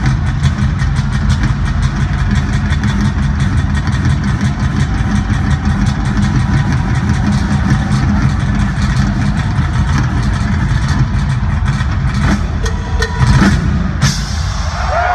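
Live rock drum solo on a double-bass-drum kit: a fast, continuous double bass drum roll with cymbals over it. It breaks off with a few big hits near the end.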